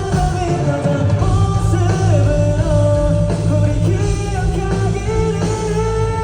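Live rock band playing with a lead vocal over loud drums, bass and guitars; the singer holds one long note near the end.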